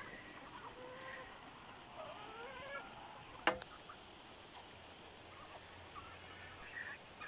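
Ducks and hens feeding as a flock, with soft scattered clucks and calls, a few of them rising in pitch, mostly between one and three seconds in. A single sharp knock comes about halfway through.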